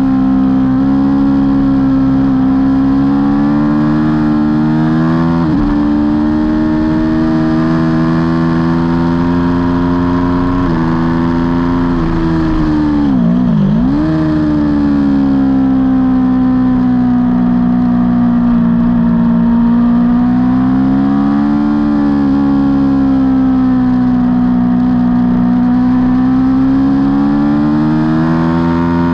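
Aprilia Tuono V4 motorcycle's V4 engine running hard at high revs, heard on board. The pitch drops briefly at gear changes about five and eleven seconds in. About halfway through the revs fall sharply, then climb again and hold high.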